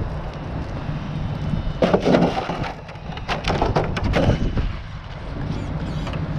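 An electric RC car clattering on the street: a run of sharp cracking knocks from about two to four seconds in, over a steady wind rumble on the microphone.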